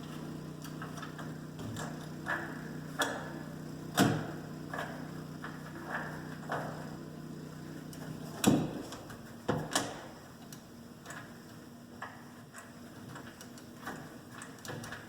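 Clicks and knocks of a deadbolt's metal parts being handled and fitted into a door, over a steady low hum that stops with a louder knock about eight and a half seconds in.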